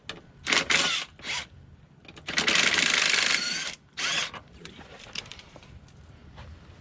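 Cordless electric ratchet with an 8 mm swivel socket backing out the CVT belt-cover bolts. It runs in a few short bursts, with one steady run of about a second and a half in the middle that carries a motor whine rising slightly at its end.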